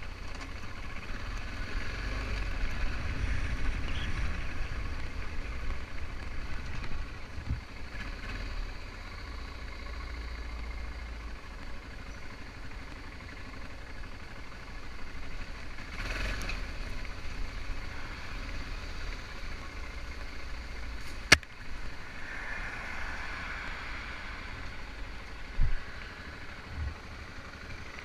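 BMW F650GS motorcycle engine running, with a single sharp click about 21 seconds in.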